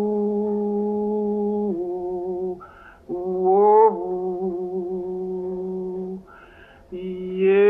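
Background music: a solo voice holding slow, long notes without words, each phrase swelling up at its start, with a breath audible before each of the two new phrases.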